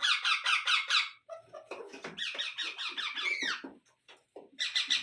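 Indian ringneck parakeet giving rapid, high-pitched chirping squeaks of about eight notes a second, in three runs. The middle run is softer and has a few rising squeaks.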